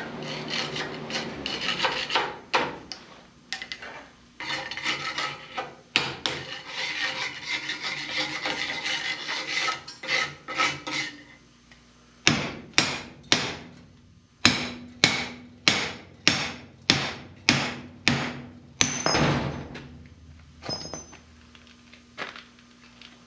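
Scraping and rubbing on a torch-cut steel part for about ten seconds, then about a dozen ringing hammer blows, roughly two a second: slag being cleaned off the freshly cut metal.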